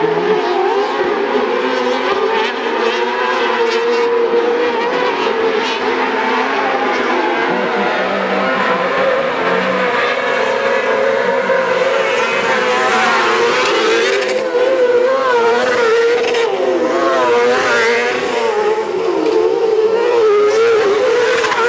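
Several autocross junior buggies racing on a dirt track, their high-revving engines rising and falling in pitch as they accelerate and back off through the corners, busier in the second half as more engines wail at once.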